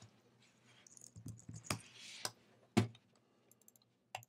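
A few separate sharp clicks of a computer mouse and keyboard, spaced unevenly, the loudest a little past the middle, with a soft hiss between two of them.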